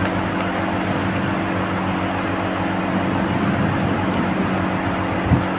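Steady rushing background noise with a low hum beneath it, unchanging throughout.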